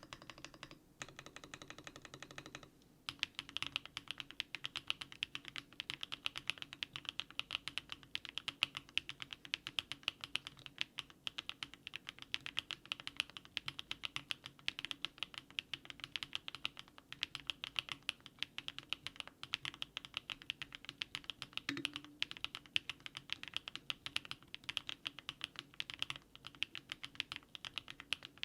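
Rapid, continuous typing on a DARING RUN DR-70F mechanical keyboard fitted with HMX 80Retros Film Joker switches. The keystrokes start about three seconds in, as background music ends.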